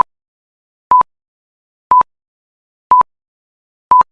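Five short electronic beeps at one steady mid pitch, one a second, with silence between them: a quiz countdown timer ticking off the answer time.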